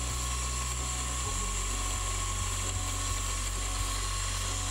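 Small drill spindle running with a steady high whine while a drill bit bores a cross hole in brass rod through a guide bushing in a drilling jig.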